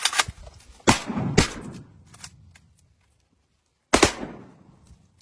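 Gunshots: a cluster of loud shots in the first second and a half, then a single shot about four seconds in, each dying away with an echo.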